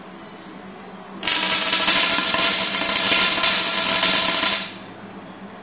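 MIG welder arc crackling and sputtering on a steel tube: a short tack weld that starts about a second in, runs for about three seconds and cuts off sharply.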